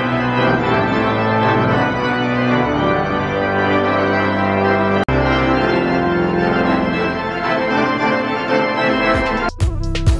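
Pipe organ playing loud sustained chords, with a split-second break about halfway. Half a second before the end it gives way to background music with a steady beat.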